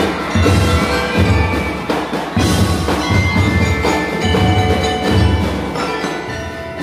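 A drum and lyre corps playing: marimbas and other mallet keyboards ring out the melody over snare drums, a steady bass-drum pulse and cymbals.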